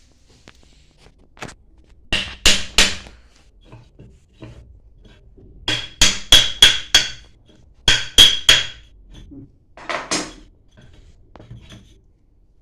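Hammer striking metal in quick clusters of two to six blows, some leaving a short metallic ring, while parts of a booster pump are worked on during its rebuild.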